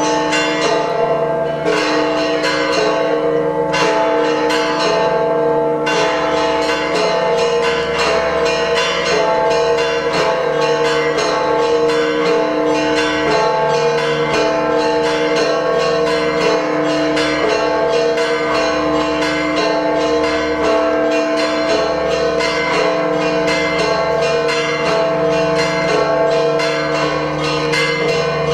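Church bells ringing a loud, continuous peal: several bells struck rapidly, many strokes a second, their tones ringing on over one another.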